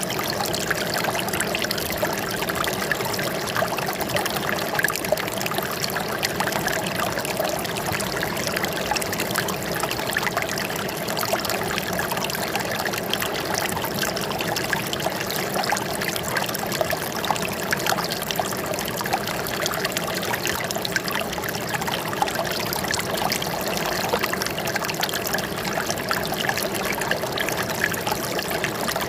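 Running water trickling and splashing steadily, with no let-up.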